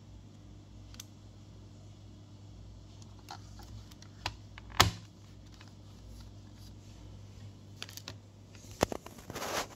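A handheld VCR remote control being handled: scattered small plastic clicks and taps, then a sharp knock about five seconds in, the loudest sound, as it is set down on the desk. Near the end comes a short burst of plastic-bag crinkling.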